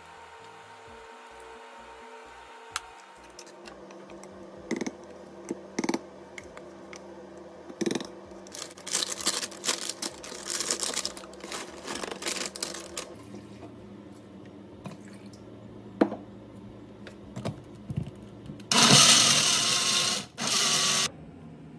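Personal blender running in two bursts near the end, a first one of nearly two seconds and a short second pulse, blending frozen cherries into a smoothie. Before that come scattered clinks and the rustle of a plastic bag as the cup is filled.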